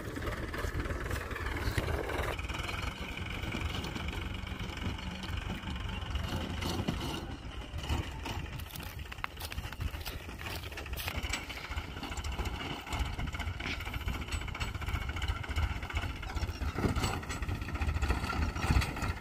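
Powertrac Euro 50 tractor's three-cylinder diesel engine running steadily under load as it pulls a rotary tiller through dry field stubble.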